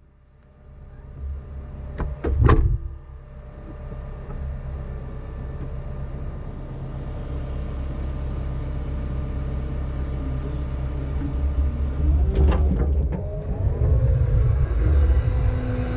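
Heavy diesel engine of an earthmoving machine running steadily, with two sharp metallic clanks about two seconds in and a busier, shifting working sound near the end.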